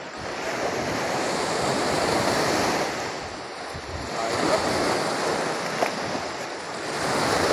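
Small sea waves breaking and washing up a sandy beach, surging louder about a second in and again around four and a half seconds, easing off in between. Wind buffets the microphone.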